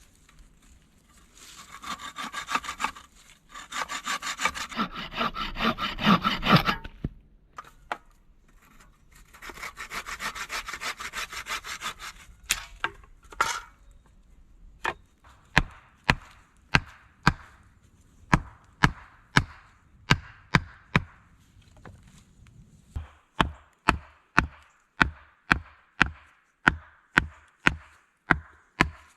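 Hand saw cutting through wood in two bouts of rapid strokes. Then a long run of sharp, evenly spaced blows on wood, about one a second at first and quickening to about two a second.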